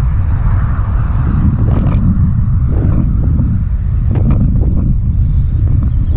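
Wind buffeting the microphone: a loud, steady low rumble, with a few short knocks or rattles about two and four seconds in.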